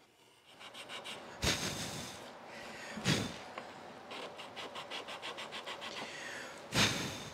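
Sandpaper rubbed back and forth inside a sawn slot in a wooden block: quick scratchy strokes about four a second. Three louder scrapes stand out, about a second and a half in, about three seconds in and near the end.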